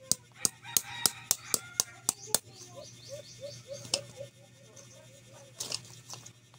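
A hand tool clicks sharply and evenly, about three or four times a second, for the first two seconds or so. Soft repeated bird chirps follow, with a few more single clicks.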